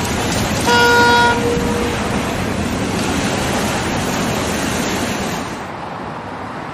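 Boat horn giving one short toot about a second in, over a steady wash of engine and water noise that drops somewhat near the end.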